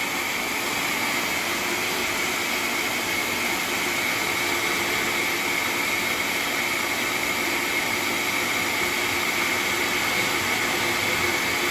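Vitamix blender motor running steadily, a loud whirring with a constant high whine, puréeing roasted butternut squash and red pepper with water into a thick sauce.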